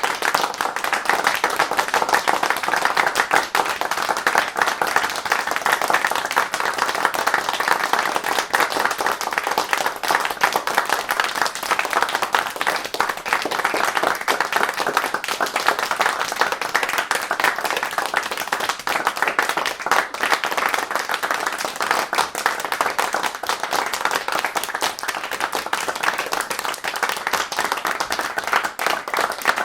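Crowd of people applauding, many hands clapping in a dense, steady stream without letting up.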